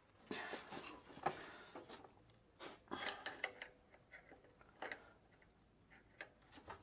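Irregular metal clicks, taps and short scrapes of hand tools working on a bicycle's square-taper crank arm, which is being pulled off a loose bottom bracket axle.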